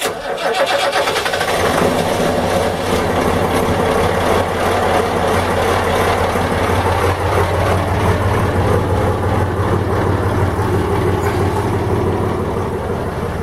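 A Ford six-cylinder 105 hp marine diesel engine starts after its glow-plug preheat and catches at once. It then idles steadily in the open engine bay, a little quieter near the end.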